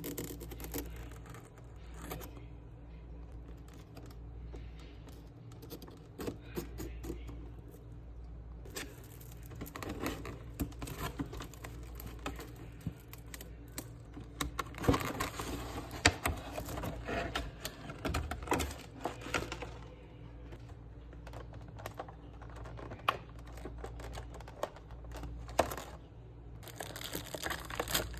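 Hands unpacking a parcel: packaging crinkling, tearing and rustling, with many small irregular clicks and taps. It is busiest in the middle and again near the end, over a steady low hum.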